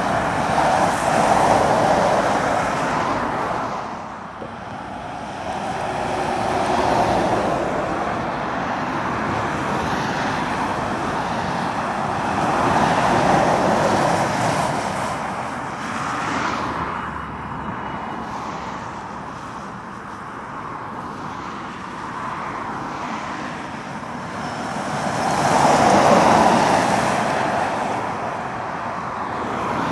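Passing road traffic of articulated lorries and cars, heard as tyre and engine noise that rises and fades with each vehicle going by. The louder passes come about a second in, in the middle, and, loudest of all, near the end.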